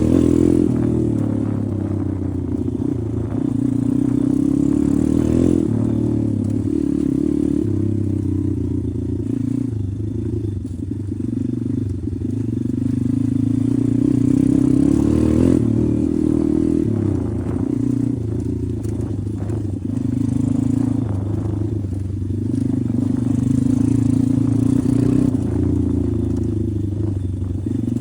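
Pit bike engine running while being ridden, its level and pitch swelling and easing slowly with the throttle.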